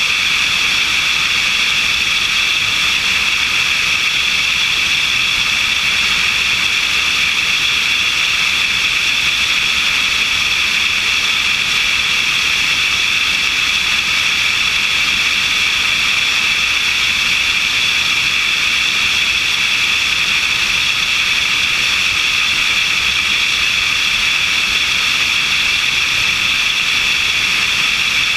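Steady, unbroken rush of airflow and engine noise from a light aircraft in cruise flight, picked up by a camera mounted on the wing, with a strong high hiss.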